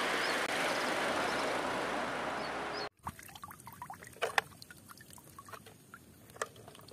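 A real tanker truck driving on a road, heard as an even rushing of road and engine noise that cuts off abruptly about three seconds in. After that come only a few faint clicks and rustles of a plastic toy truck being handled.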